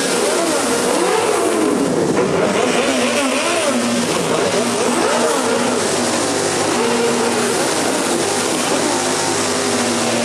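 Several motorcycle engines revving again and again. Their pitch rises and falls in overlapping sweeps over a steady, dense engine din.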